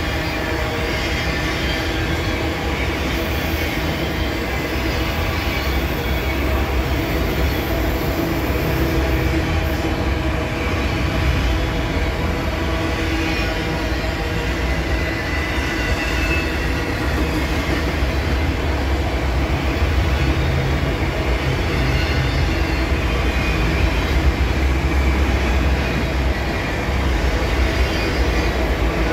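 A long freight train of enclosed autorack cars rolling steadily past, with a continuous, unbroken rumble of steel wheels on the rails.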